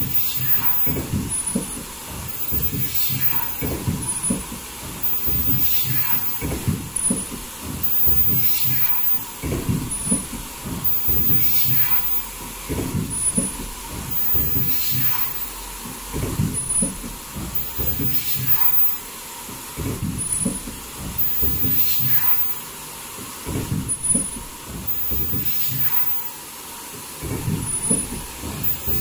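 Foldable mask production machine running in a steady cycle, one surge about every two seconds. Each cycle brings mechanical clatter and a hiss of air, with short high-pitched tones repeating alongside.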